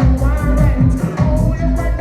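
Loud upbeat music with a steady, rapid beat and a bass line, with some singing.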